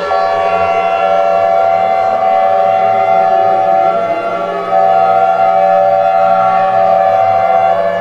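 Civil defense siren wailing, several steady tones sounding together, with a brief drop about halfway through before it cuts back in.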